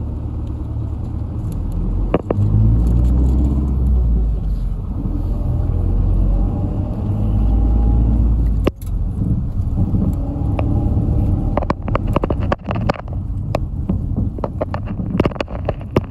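Bus engine running with a low drone heard from inside the cabin. A sharp click comes about two seconds in and another past halfway, then a run of rattles and clicks from the bus body in the second half.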